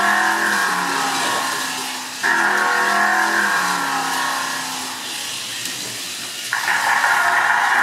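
Slot car's small electric motor and gears whining as the car laps a wooden track, surging and easing in pitch with the throttle. Loud stretches start abruptly about two seconds in and again near the end.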